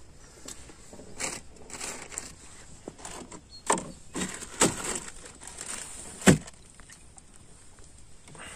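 Steel cooking pot and gear being handled, giving irregular knocks and clatter, with the loudest a heavy thump about six seconds in.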